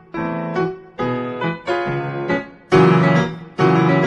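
Background piano music: a run of chords and notes struck one after another, growing louder in the second half.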